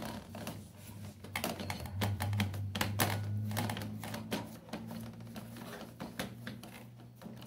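Hand pressing and pushing pizza dough out across an aluminium baking tray, with the tray knocking and rattling against the gas stove's grate in quick, irregular taps. A low steady hum sits underneath.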